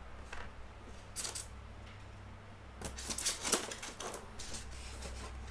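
Small hard plastic parts clicking and clattering as they are handled, with a couple of sharp clicks about a second in and a busier run of clicks around three seconds in.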